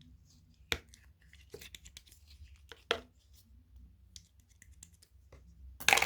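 Homemade slime being handled, giving small sticky crackles and a few sharp pops, with the loudest burst of pops near the end.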